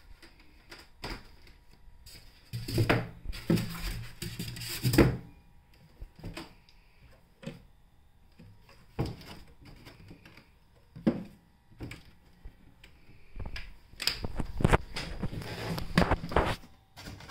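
Cardboard box and packing pieces being handled: irregular knocks, thumps, scrapes and rustles, in two busy spells with a quieter stretch between.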